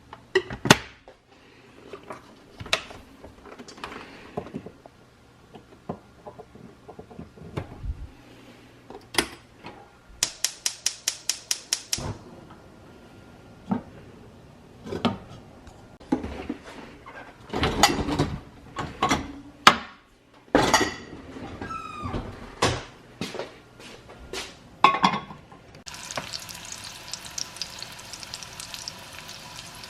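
Dishes and utensils clinking and knocking, in scattered separate strikes. A third of the way in comes a quick, even run of about nine clicks. Over the last few seconds there is a steady hiss with a faint hum.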